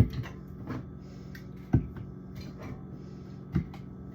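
Drink bottles and cans being handled and set down in a refrigerator: four sharp knocks with softer clicks between them, over a low steady hum.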